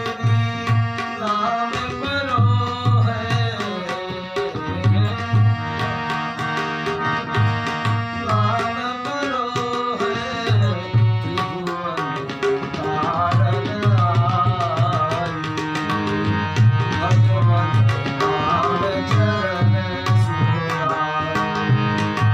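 Devotional bhajan music: tabla playing a steady rhythmic pattern of deep bass strokes under long held drone notes, with a melody line that slides and wavers in pitch.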